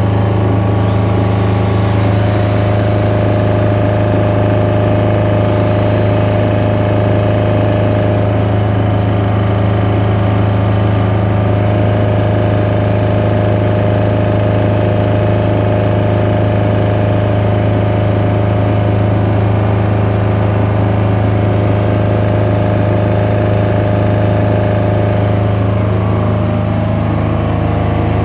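Engine of a 15 kVA silent generator set running steadily at constant speed, a loud low hum. Twice in the first eight seconds a faint high whine climbs and then slowly falls away.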